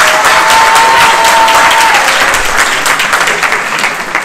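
Audience applauding, a dense patter of many hands clapping that thins out toward the end. A steady tone is held over it for the first two seconds or so.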